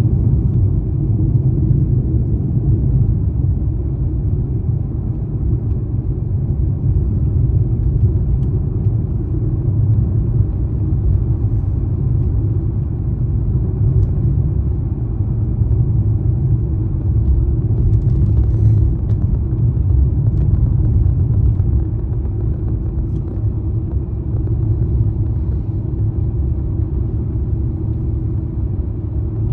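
Steady low rumble of a car being driven, engine and road noise running on evenly.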